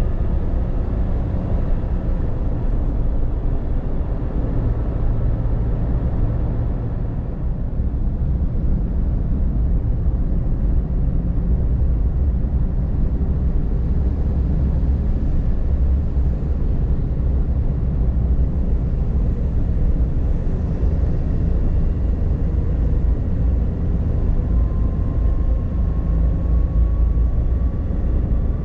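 Steady low rumble of road and engine noise heard inside the cabin of a Suzuki Jimny cruising at expressway speed, its 658 cc turbocharged three-cylinder engine running under the tyre noise. A faint whine rises slowly in pitch near the end.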